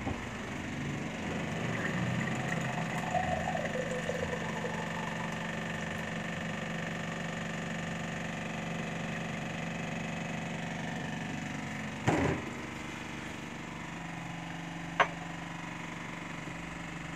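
Water running from a water dispenser's tap into a glass over the first few seconds, over a steady low hum. A single knock about twelve seconds in and a sharp click near the end.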